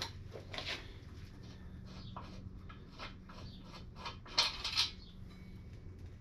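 Quiet metal clinks and knocks of parts and tools being handled and set down on a workbench, with a louder clatter about four and a half seconds in.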